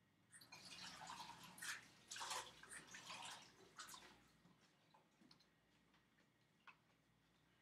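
Faint splashing of running tap water as something is rinsed out, in uneven gushes for about four seconds, followed by a few small clicks.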